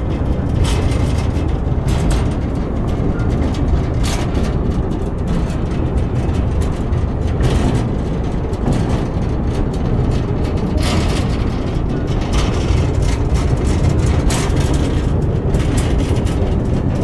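A narrow-gauge train's steady running rumble, heard from aboard an open wagon, with occasional sharp clicks over it.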